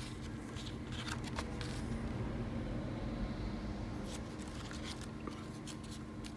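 Trading cards being handled and flipped through, giving a scatter of light clicks and rustles over a steady low hum.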